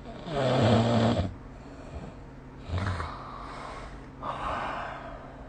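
A person snoring in their sleep. There is a loud, low-pitched snore lasting about a second, then a shorter, quieter snore around three seconds in, then a breathy exhale near the end.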